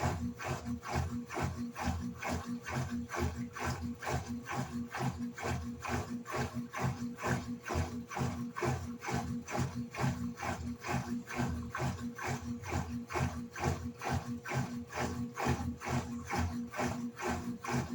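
Electrolux LED14 14 kg top-loading washing machine agitating a load of clothes and water in its wash cycle: a rhythmic churning and swishing, about three strokes a second, over the steady hum of the motor.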